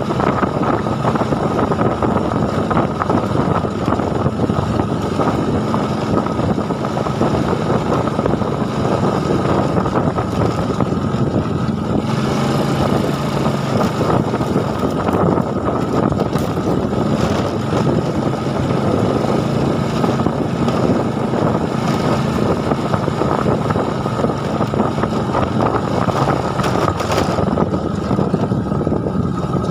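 A small engine running steadily at an even pitch, its note shifting slightly now and then.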